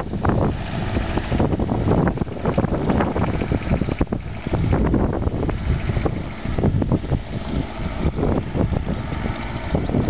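Wind buffeting the microphone in uneven gusts, over the distant engine of a 1958 McCormick International B275 tractor running as it approaches along the road.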